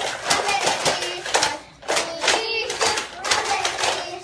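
Several people's voices, short calls or laughter without clear words, mixed with rapid irregular sharp claps or knocks.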